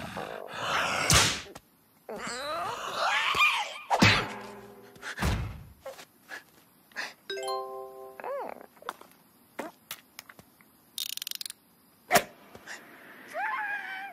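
Cartoon slapstick sound effects: a character's wordless cries, several thuds and knocks, and a short bell-like chime about halfway through.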